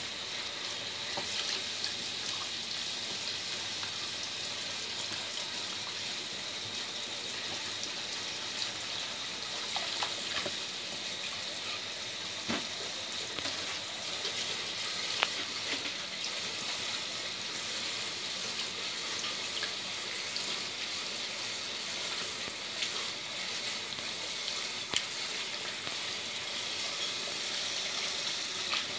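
Kitchen tap running, its stream splashing into a bowl in a stainless steel sink as a raccoon washes it with its paws: a steady hiss of water, with a few sharp clicks.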